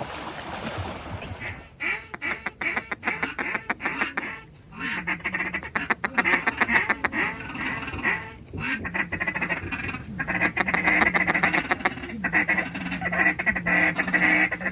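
Duck calls blown in quick quacks and rapid feeding chatter, with a few short pauses, to work incoming ducks toward the spread.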